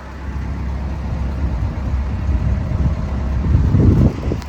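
Kobelco SK210LC-9 track excavator running on its Hino diesel engine as it tracks. The rumble grows louder and then drops off suddenly about four seconds in.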